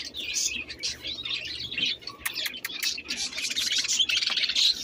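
Many caged small birds, budgerigars among them, chirping and chattering at once, with many short overlapping calls and no pause.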